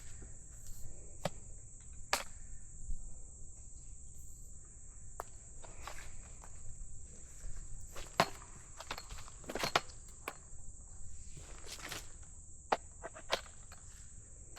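Scattered clicks and knocks from the parts of a cordless pole saw being handled and fitted together, over a steady high chirring of insects.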